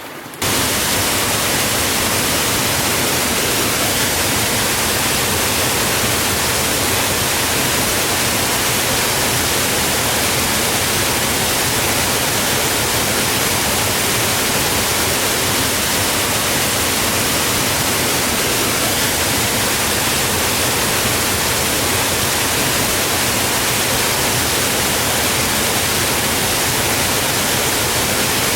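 Waterfall on a mountain creek: a steady rush of falling water that cuts in abruptly about half a second in.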